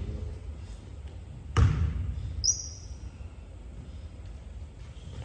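A basketball bouncing once on a hardwood gym floor, a sharp thud about one and a half seconds in, over a steady low gym rumble. A short high squeak follows about a second later.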